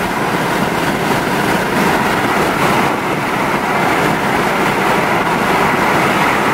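Chevrolet Camaro SS's 6.2-litre V8 running steadily at freeway speed, with tyre and wind noise, heard from inside the cabin.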